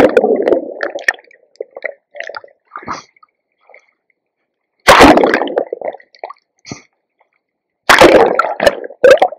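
Swimming strokes splashing in pool water, heard through a camera that goes in and out of the water: three loud splashes, one at the start, one about five seconds in and one about eight seconds in, with small drips and gurgles between.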